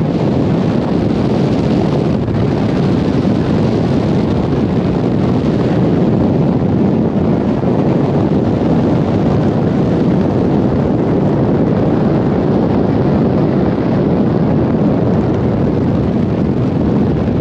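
Steady rush of wind over the microphone mixed with tyre and road noise from a car driving at speed.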